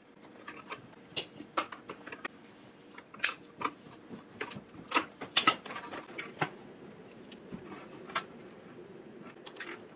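Irregular small metal clicks and clinks as a steel wire cable and its fittings are worked onto a cast-iron sewing-machine foot pedal with a hand tool. The clicks are loudest and most frequent a little past the middle, then thin to a few taps near the end.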